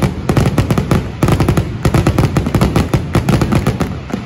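A loud, rapid barrage of fireworks: shell bursts and crackling reports, many per second, with a short break about a second in.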